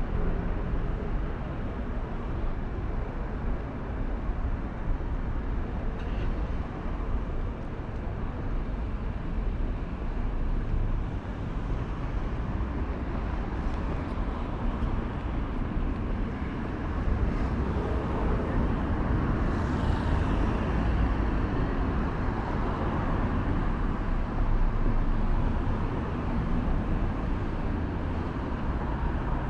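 City street ambience: a steady rumble of road traffic with no single event standing out.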